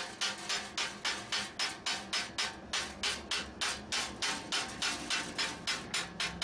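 Hand hammer striking a red-hot steel bar held in a vise, in a quick, even rhythm of about four light blows a second, drawing the hot end round into a bend.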